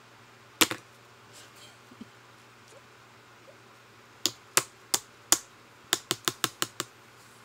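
Sharp taps on a hard block of butterbeer fudge, showing that it is hard rather than soft: one tap about half a second in, then a quick run of about ten taps in the second half.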